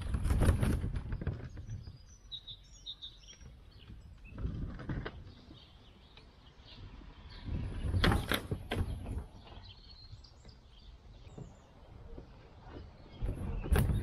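Bicycle towing a loaded-frame camper trailer over ramps and bumps: the trailer's wheels and frame rattle and thump in several bursts, the loudest about eight seconds in as it comes off a grass mound. Birds chirp faintly between the bursts.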